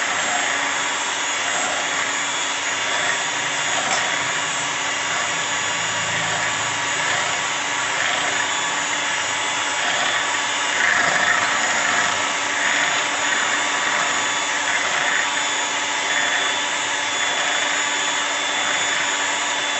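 Electric hand mixer running steadily, its beaters whisking eggs until fluffy in a glass bowl.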